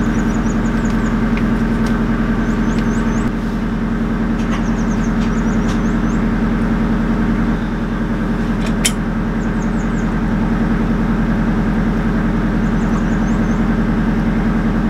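A narrowboat's diesel engine running steadily while moored, kept running to power the washing machine on board.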